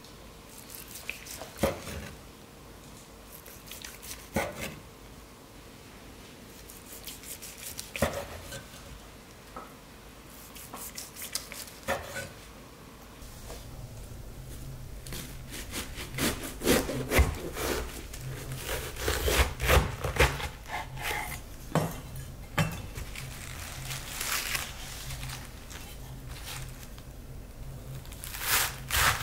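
Chef's knife slicing boiled pork belly on a wooden cutting board, with a few soft knocks several seconds apart as the blade meets the board. About halfway, crisp crackling, crunching strokes as the knife cuts through a head of napa cabbage, over a steady low hum.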